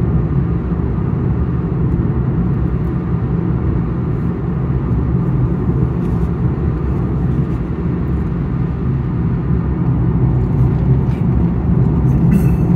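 Steady low rumble of road and tyre noise inside a Chevy Spark's cabin at highway speed.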